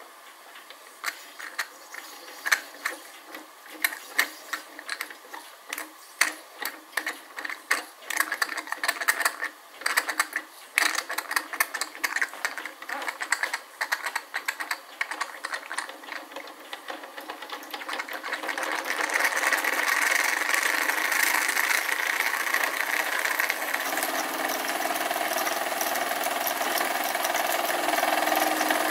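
Wilesco D16 toy steam engine started by a flick of the flywheel, its exhaust beats coming as separate knocks that quicken. After about 18 seconds they merge into a louder, continuous fast run, with the belt-driven tin bucket elevator rattling.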